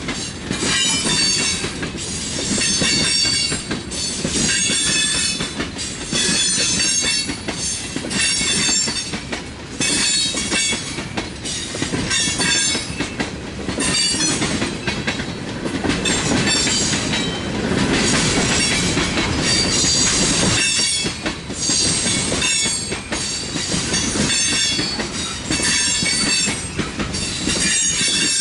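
Freight train cars rolling past with a steady rumble, and a high-pitched wheel squeal that swells and fades about once a second as the cars go by.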